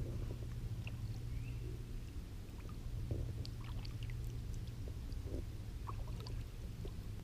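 Water dripping and trickling around a kayak gliding on calm water, with scattered small drips and ticks over a steady low hum.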